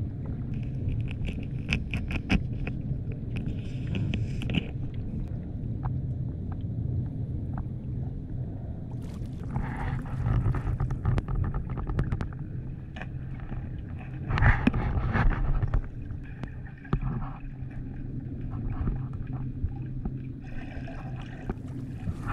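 Muffled underwater sound picked up by the camera's microphone beneath the surface: a steady low rumble of moving water, with scattered clicks and several bursts of higher hissing and bubbling.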